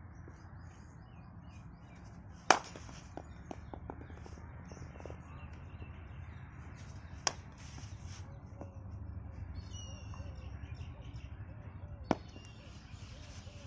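Cricket bat striking the ball in pull-shot practice: three sharp cracks about five seconds apart, the first the loudest. Birds chirp faintly in between.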